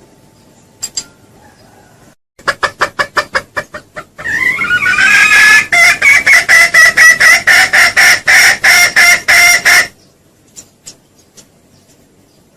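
Junglefowl calling, a lure call: a quick run of clucks lasting about two seconds, then a long, loud call that rises in pitch and then goes on in rapid pulses for about six seconds before stopping abruptly.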